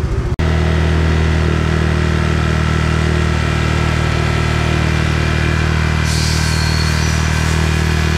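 Honda Click 125 scooter engine, fitted with a BRT 63zz big-bore kit, idling at a steady speed, with a short hiss about six seconds in.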